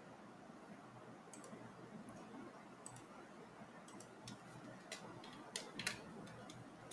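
Faint, irregular clicks of computer keyboard keys being pressed one at a time, about eight in all, with two close together a little before the end.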